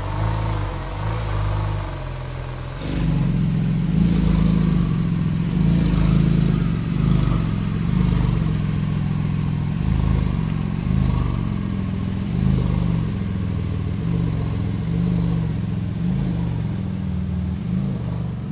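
Porsche 991 GT2 RS's twin-turbo flat-six running at idle through its exhaust, the note rising and falling slightly. It gets clearly louder about three seconds in.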